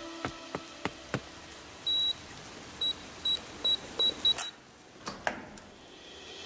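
A series of high electronic beeps: one longer beep, then about six short ones coming faster and faster, with scattered sharp clicks before and after.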